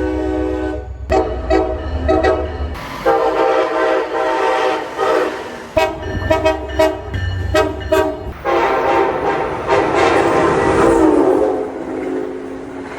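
Train air horns sounding a series of long and short blasts, each a chord of several notes, in clips that cut one into another. A long final blast drops in pitch about two-thirds of the way through.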